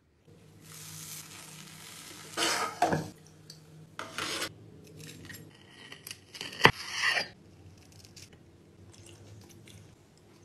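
Kitchen utensils clattering and scraping against cookware in a few separate rattles. A single sharp clink a little past the middle is the loudest sound.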